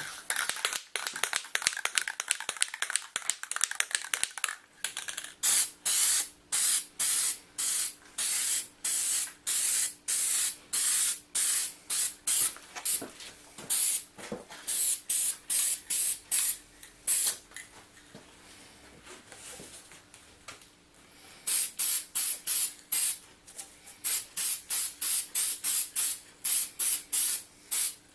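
Spray paint hissing in many quick short bursts as a colour coat goes onto the vise parts. The bursts come closest together in the first few seconds and pause for a few seconds past the middle.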